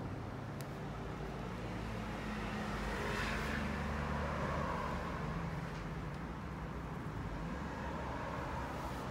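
A road vehicle passing: a steady low hum that swells to its loudest about three to five seconds in, then fades.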